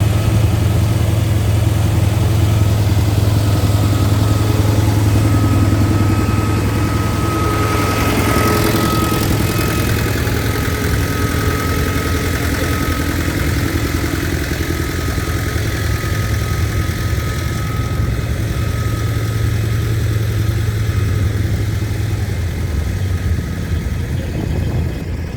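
Engine idling steadily with a deep hum, with a brief swell about eight seconds in.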